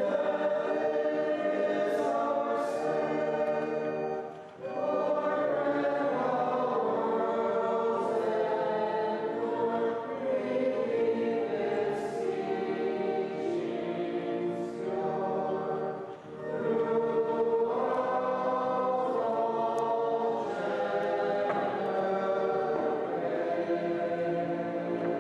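Choir singing in long held phrases, with brief pauses between phrases about four and a half and sixteen seconds in.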